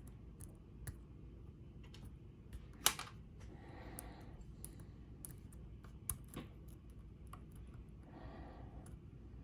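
Lock pick working the pins of an Illinois Duo cam lock under tension: scattered faint clicks, with one sharper click about three seconds in.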